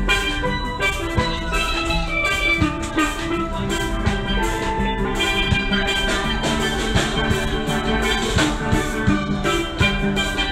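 Background music: an upbeat steelpan melody over drums.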